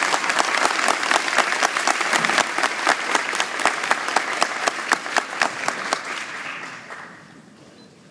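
Audience applauding, with single claps close by standing out of the crowd's clapping; the applause dies away over the last couple of seconds.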